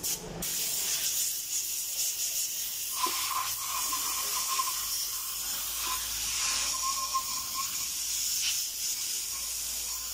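Compressed-air spray gun hissing steadily as it blasts the fuel pump assembly clean, with a faint whistle through the middle.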